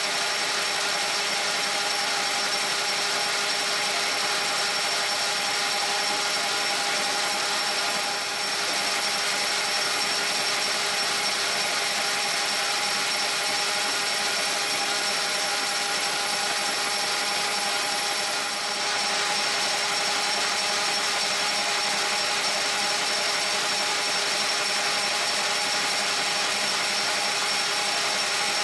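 South Bend metal lathe running under cut, turning a 6061 aluminum bar: a steady machine whine over the continuous hiss of the cutting tool, dipping briefly twice.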